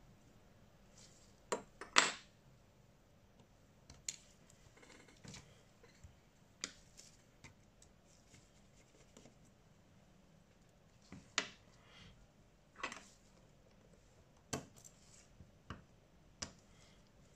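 Small hand tools and phone parts clicking and scraping during a smartphone screen repair: a dozen or so irregular sharp clicks, the loudest about two seconds in.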